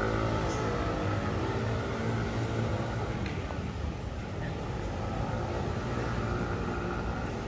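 A motor vehicle's engine running close by, its pitch falling around the start as it passes, then a steady hum.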